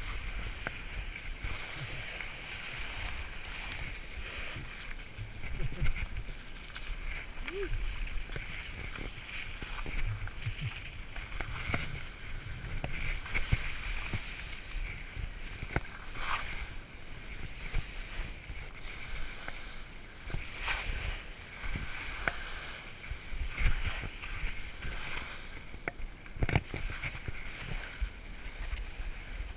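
Sliding fast over soft, wet spring slush: a continuous slushy hiss, with occasional sharp knocks and scrapes as the snow gets rougher.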